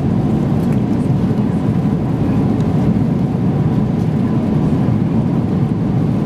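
Steady cabin noise of a Boeing 777-300ER airliner in flight: an even, deep rushing of engines and airflow that holds constant throughout.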